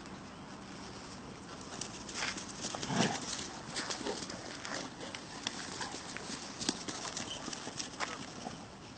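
Irregular patter of footfalls and scuffles, with one louder thump about three seconds in.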